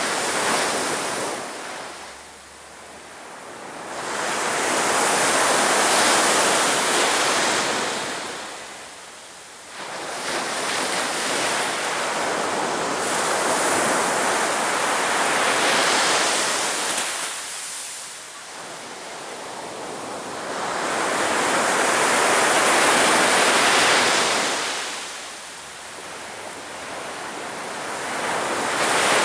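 Sea waves breaking on a beach: the rush of surf swells and fades in long surges about every seven to eight seconds.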